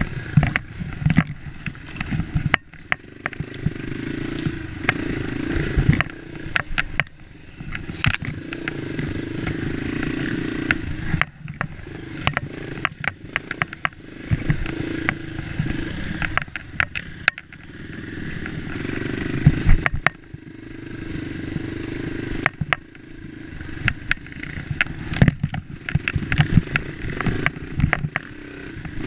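Dirt bike engine running under way on a rough trail, its note swelling and dropping with the throttle over several seconds at a time, with frequent rattles and knocks from the bike over the bumpy ground.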